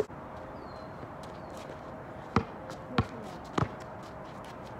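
Basketball bouncing on an asphalt driveway: three sharp dribble bounces evenly spaced a little over half a second apart, starting about halfway through, with a fainter bounce at the very start.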